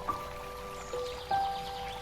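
Background music: a slow melody of ringing notes, each starting sharply and held, with a new note about every half second.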